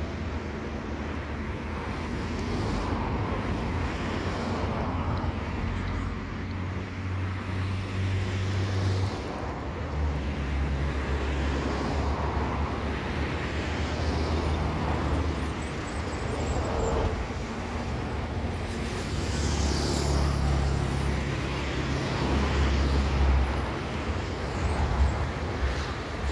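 Road traffic: vehicle engines running and passing, with a low engine hum that swells and fades several times. Mixed with it is the distant rumble of a jet airliner on approach.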